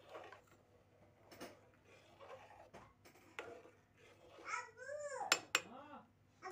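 A steel ladle stirring peanuts into thick kheer in an aluminium pot, with scattered light clinks of the ladle against the pot, the sharpest two a little after the fifth second. A voice calls out briefly about four and a half seconds in.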